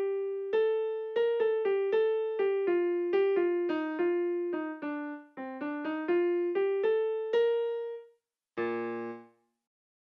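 Intro music: a simple keyboard melody of single plucked notes, about two or three a second, each dying away quickly, ending in a short chord.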